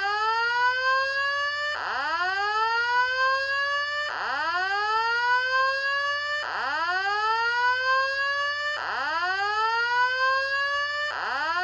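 Building fire alarm evacuation system sounding its whoop tone: a rising sweep in pitch that repeats back-to-back a little more than every two seconds, about five times.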